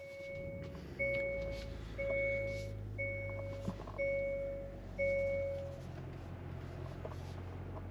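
Hyundai Elantra's dashboard warning chime dinging six times, about once a second, just after push-button start. Under it the car's 2.0-litre four-cylinder engine idles with a low steady hum.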